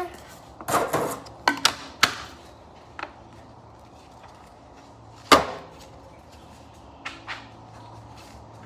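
Irregular sharp knocks and clicks of plastic model-rocket kit parts being handled and set down on a work table, about eight in all, the loudest about five seconds in, over a faint steady low hum.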